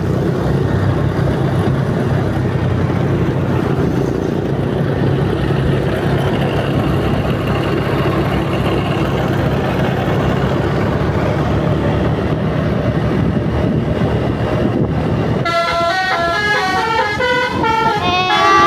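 Bus engine running steadily for most of the stretch. About fifteen seconds in, the bus's basuri "telolet" multi-tone horn starts playing a stepped, tune-like sequence of notes.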